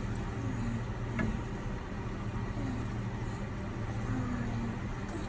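A kitchen appliance running steadily: a constant low hum over an even rushing noise, with a few faint brief gliding tones.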